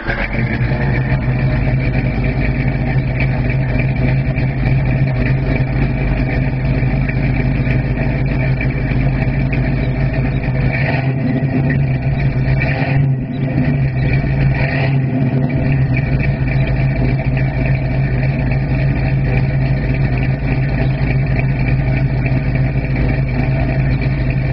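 1967 Ford Mustang's 302 cu in (5.0 L) V8 running steadily, heard at the tailpipe. It holds an even, loud note.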